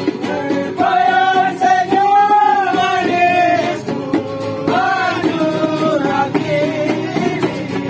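Men singing a held, rising and falling melody to strummed acoustic guitars.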